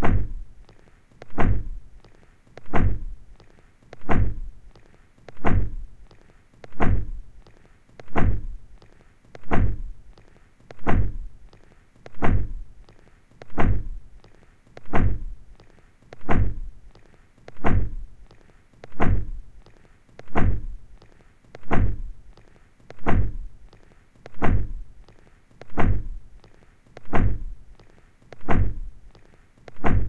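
Car door being shut, a heavy thunk repeated at an even pace about every second and a half, each with a deep low end and a short decay.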